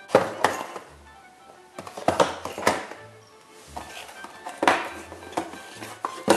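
Small cardboard boxes of plastic mini-figure bricks clattering and knocking against each other and the table as they are handled, turned over and set down, in several short bouts. Background music plays under it.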